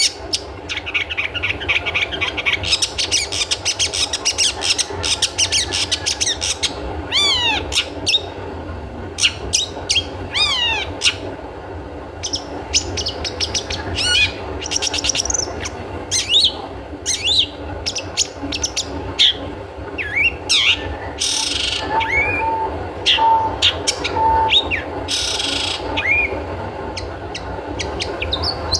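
Long-tailed shrike (cendet) singing: a varied run of short sharp chirps and quick sweeping whistles, with a fast rattle of notes in the first few seconds.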